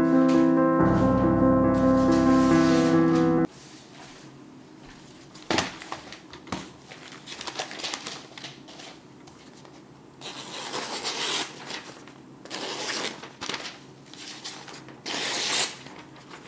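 Piano music that cuts off suddenly a few seconds in. It is followed by quiet handling noise: a click, then several short rustling or crinkling bursts about a second long.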